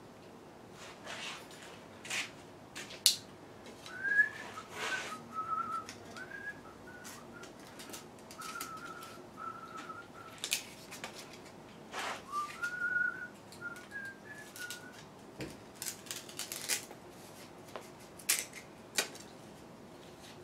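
A person whistling a tune, a run of short held notes with small slides between them from about four to fifteen seconds in, over scattered sharp clicks and knocks.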